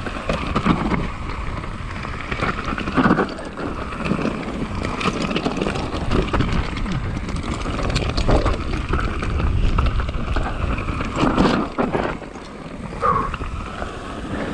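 Mountain bike descending a loose, rocky dirt trail: tyres rolling over loose dirt and stones, with repeated knocks and rattles from the bike over bumps and a low wind rumble on the microphone.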